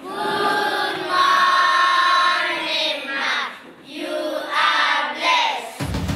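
A class of young schoolchildren singing together in unison, in two phrases with a short break between them. Backing music with a deep bass comes in near the end.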